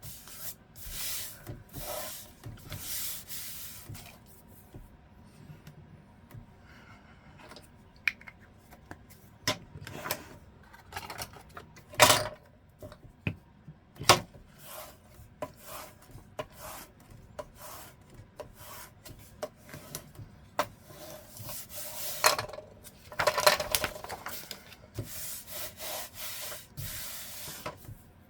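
Paper being rubbed and handled on a work surface in irregular swishes, with two sharp taps about halfway through.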